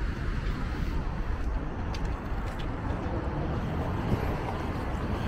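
Steady street traffic noise, a continuous low rumble of passing vehicles.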